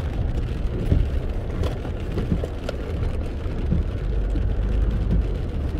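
A car driving on a rain-soaked road in heavy rain, heard from inside the cabin: a steady low rumble of engine and wet tyres, with rain hitting the windscreen and roof in scattered small taps.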